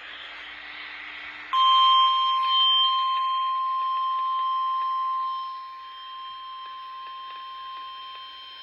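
Radio hiss, then about a second and a half in a single steady alert tone comes on: the NOAA Weather Radio warning alarm tone that comes before a severe thunderstorm warning. It is loud at first, then drops in level after about five seconds and keeps sounding more quietly.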